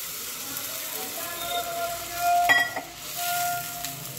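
Water poured into a hot kadhai of cooking pea-and-coriander paste, hissing and sizzling as it hits the pan, then a ladle stirring the thinned curry, with a sharp knock against the pan about two and a half seconds in and a few short ringing tones around it.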